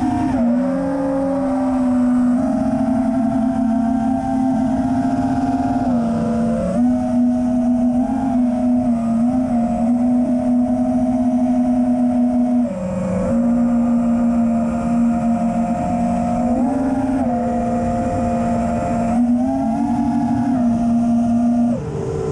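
FPV quadcopter's brushless motors and propellers whining in flight, the pitch dipping and rising with the throttle.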